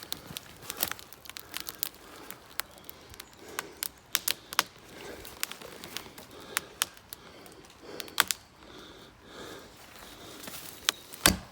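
Dry twigs and brush crackling and snapping: a string of irregular sharp cracks with faint rustling between them.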